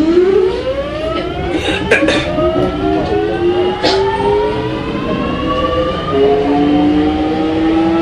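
Kintetsu 1420 series electric train's VVVF inverter and traction motors whining in several rising tones as the train accelerates, the pitch stepping to a new tone about six seconds in. Two sharp knocks come through, about two and four seconds in.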